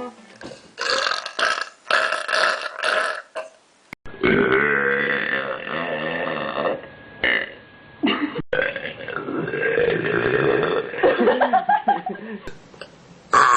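People belching loudly, one after another: a quick run of short belches, then several long, drawn-out belches with a clear pitch. The recording quality changes abruptly twice, because the belches come from different recordings.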